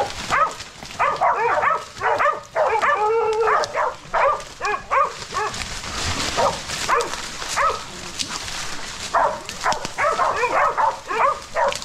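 Hog dogs barking and yelping in a rapid, overlapping chorus while holding a big wild boar at bay.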